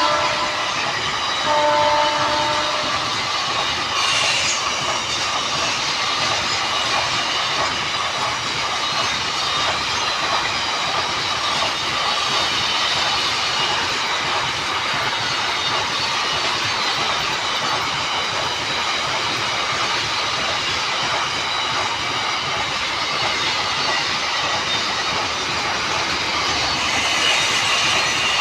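WAG-12B electric freight locomotive giving a short two-tone horn blast about two seconds in, then the locomotive and its train running past with a steady loud rumble and the clatter of wheels over the rail joints.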